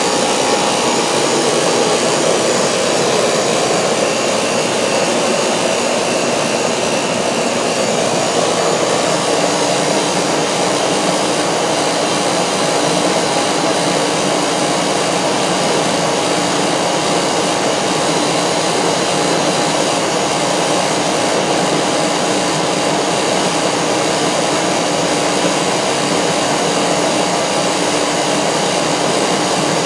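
Rheem 5-ton central air conditioner's outdoor condensing unit running close up: a steady, loud rush of the condenser fan over the compressor. It is running on R407C after its R22 retrofit while its charge is being topped up.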